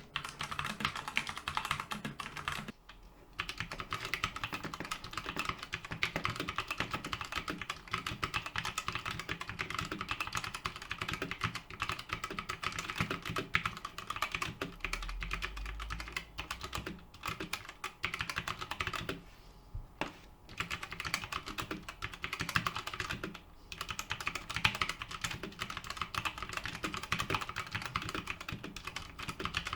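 Continuous fast typing on a Redragon Draconic K530 mechanical keyboard with Redragon Brown switches: dense, fairly quiet key clicks with a few brief pauses. The keys sound without echo.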